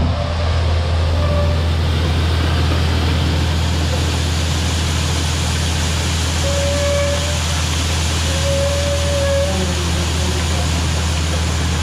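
Combine harvester running steadily: a low, even engine drone with a faint whine coming and going a few times in the middle.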